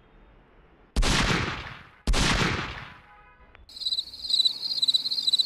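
Two sudden loud bangs about a second apart, each dying away over about a second. They are followed by a brief tone and then a rapid, regular high-pitched chirping pattern.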